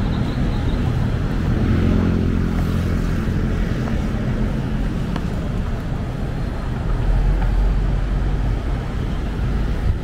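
Urban street traffic: motor vehicle engines running and passing over steady road noise, with a heavier low rumble from a passing vehicle about seven seconds in.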